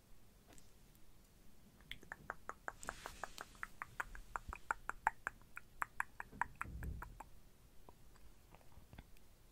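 ASMR mouth sounds: a rapid run of wet lip and tongue clicks, about five a second, starting about two seconds in, with a breathy puff near three seconds.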